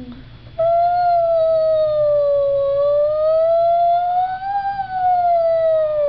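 A toddler imitating a fire engine siren with his voice: one long wailing note starting about half a second in, sagging slowly lower, then rising, and falling away near the end.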